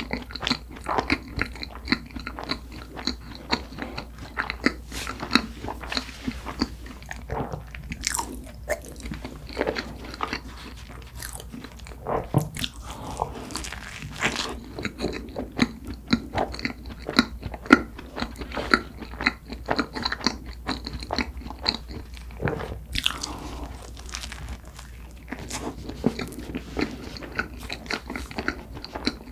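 Close-miked eating of cream-filled red bean buns: biting and chewing soft bread and cream filling, with many short wet clicks and smacks of the mouth.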